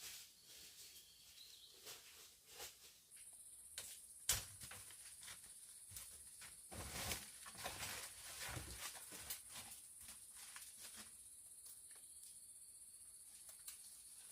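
Faint rustling and scattered clicks, with one sharp click about four seconds in and a busier patch of rustling a little after the middle. A steady high-pitched hiss sets in about three seconds in and holds.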